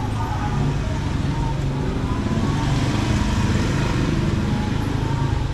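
Motor vehicle traffic running, a steady engine hum under a rush of noise that swells and fades about halfway through.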